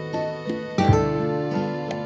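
Gentle background music of plucked strings, single notes picked one after another and left to ring.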